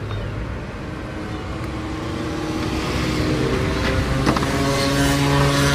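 A vehicle engine running, its pitch and loudness slowly rising over the last few seconds, with a single click about four seconds in.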